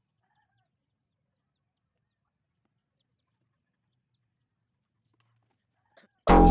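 Near silence with only a few very faint scattered sounds, then loud background music cuts in suddenly near the end.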